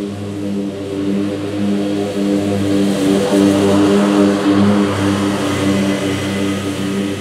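Scag Cheetah zero-turn commercial mower cutting grass, its engine giving a steady droning hum with the rush of the cutting deck. It grows louder in the middle as the mower swings close, then eases off.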